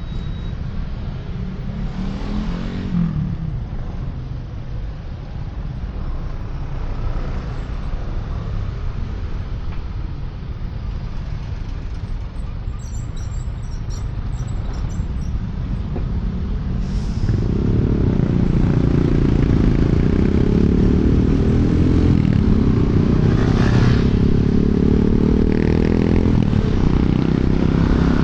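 Riding sound from a QJMotor Fortress 160 scooter heard through a helmet-mounted external microphone: steady wind rush and engine and road rumble in traffic. About two-thirds of the way through the engine note gets louder and rises slowly, as under acceleration.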